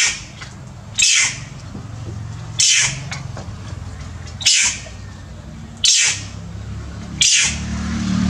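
Long-tailed macaque giving short, high shrieks that fall in pitch, six in a row about one to two seconds apart, as its wound is cleaned: cries of pain. A low steady hum runs underneath.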